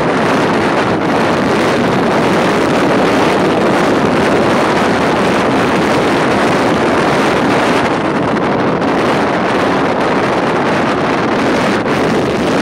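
Sea-Doo personal watercraft running steadily across open water, its engine and water noise buried under heavy wind rushing on the microphone; a loud, even noise without pauses.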